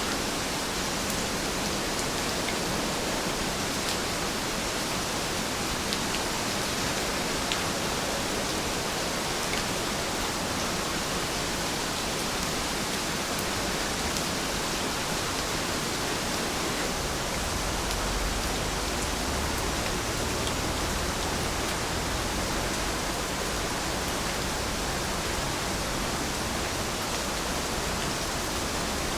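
Heavy rain falling steadily: a dense, even hiss with a few sharper drop ticks here and there.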